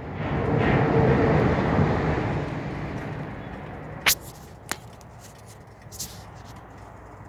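The car's V6 engine noise swelling over about two seconds and fading again, typical of a restart after a stall, followed by two sharp clicks.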